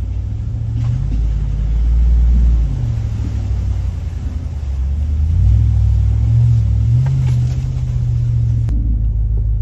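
2024 Ram Power Wagon's 6.4-litre HEMI V8, with a Magnaflow muffler, running in a low rumble as the truck crawls out of a creek crossing and up a rocky trail, heard from inside the cab. It swells louder about five seconds in.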